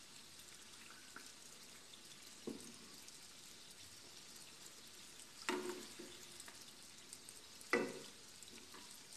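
Donut rings deep-frying in oil on low heat: a faint, steady sizzle. A metal spatula knocks against the pan three times, about two and a half, five and a half and eight seconds in, as the donuts are turned.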